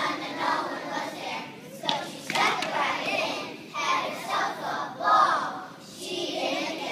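A group of young children singing a song together, the voices rising and falling through the phrases.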